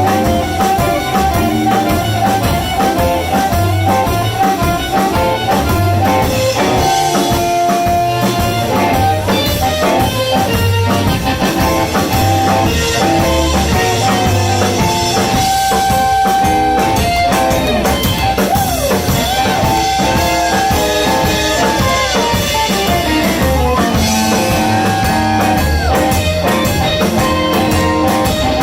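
Blues band playing live: guitar and drum kit over a steady beat, with a lead line of sustained and bent notes.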